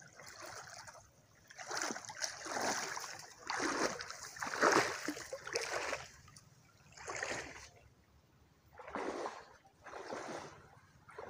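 Shallow river water splashing as a person wades and works a fishing net among reeds, in repeated short bursts about a second or two apart.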